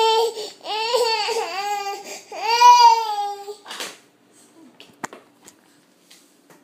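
Sick toddler crying in three long, high-pitched cries that stop a little past halfway, followed by a few faint clicks.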